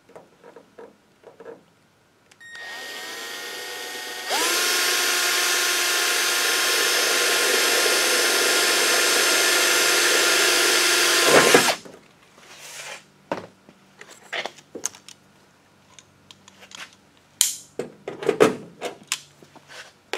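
Milwaukee cordless drill drilling a hole through the aluminium wing skin. It runs as a steady whine that starts softer, steps up louder about four seconds in, and cuts off suddenly after about seven more seconds. Scattered light clicks and knocks follow.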